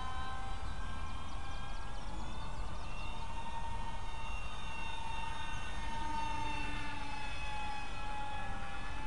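Whine of a Depron push/pull tandem twin model plane's two electric motors and counter-rotating propellers in flight, its pitch drifting slowly up and down. A steady low rumble of wind on the microphone lies beneath it.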